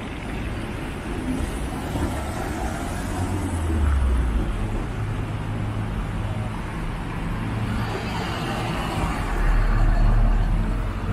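Road traffic at a busy city crossing: cars passing close one after another over a steady hum of traffic. A low rumble swells about four seconds in, and again, loudest, near the end as a large vehicle passes close.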